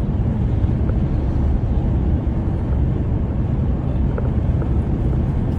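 Car driving on a highway: a steady low rumble of tyres and engine.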